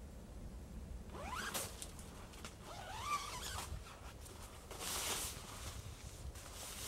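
Tent door zipper being pulled open in a few separate strokes, faint.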